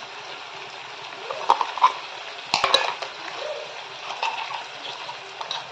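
Pumpkin and chana dal sizzling gently in a kadhai while masala paste is spooned from a bowl into the pan, with a few clinks and knocks of the spoon against the metal; the loudest knocks come about two and a half seconds in.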